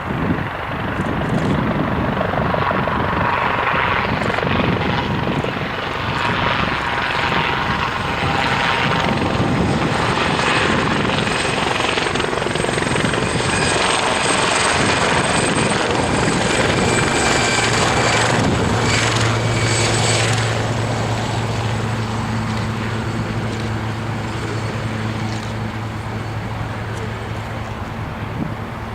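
Aircraft turbine engines passing close by: a dense roar with a high whine that builds to its loudest about halfway through, then eases off after about twenty seconds, leaving a steady low hum.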